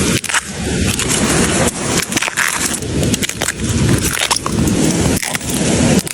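Dense, irregular rustling and crackling of bamboo stalks and leaves being pushed through and handled, with a few sharp snaps.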